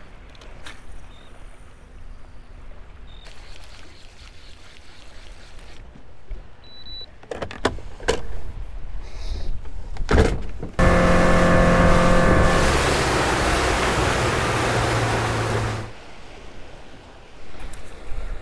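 An electric motor on a boat running for about five seconds: a steady hum that starts and stops abruptly, preceded by a few knocks.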